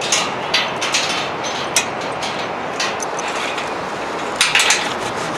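Bungee ankle harness being strapped on: several short sharp rustles and clicks of the straps and fastenings being handled, over a steady rushing background noise. A quick cluster of them comes near the end.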